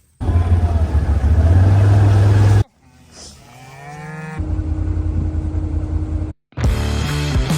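A quick run of cut-together farm clips: a loud steady low rumble like a running engine, cut off to a cow mooing about three seconds in, then another steady machine hum. Music starts near the end.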